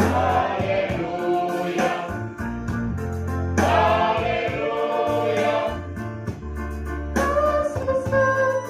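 Mixed choir of men's and women's voices singing together over an electronic keyboard accompaniment, swelling louder about three and a half seconds in.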